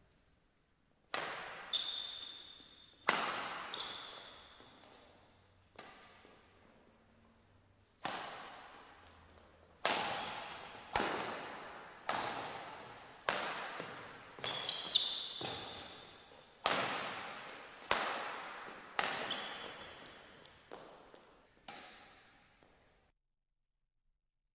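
Badminton rackets striking a shuttlecock in a rally, sharp hits about once a second, each ringing out in the hall's echo, with high-pitched shoe squeaks on the court floor between hits. The sound cuts off suddenly near the end.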